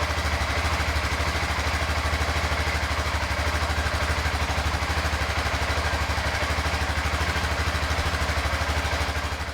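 2001 BMW F650GS Dakar's single-cylinder engine idling with a steady, even pulse.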